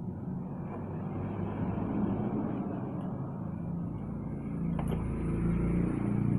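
Motor vehicle engine running steadily, swelling a little about two seconds in and again near the end.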